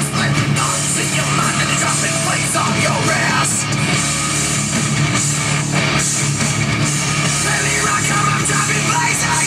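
Loud heavy rock music with guitar.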